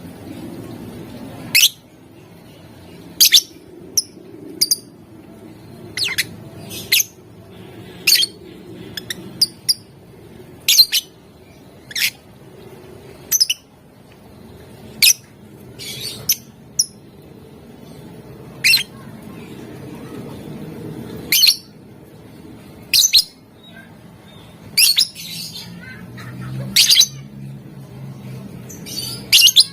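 Lovebird giving short, shrill chirping calls, one every second or two at irregular spacing, over a low steady background murmur.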